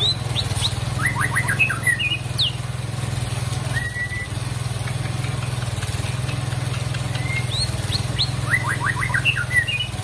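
White-rumped shama (murai batu) singing two phrases, one near the start and one near the end, each a quick run of short falling notes followed by a few higher whistles, over a steady low hum.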